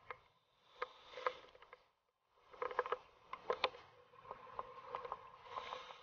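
Scuba diver's exhaled bubbles gurgling and popping underwater, in two stretches with a short break about two seconds in, with sharp clicks scattered through.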